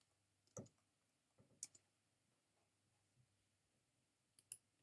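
Near silence broken by a few faint, sharp computer keystroke clicks: two spaced single clicks, then a quick pair near the end.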